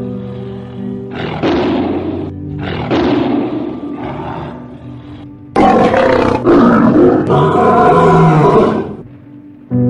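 A big cat growls in short, rough bursts, then gives one loud roar lasting about three seconds from about five and a half seconds in. Background music with sustained tones plays underneath.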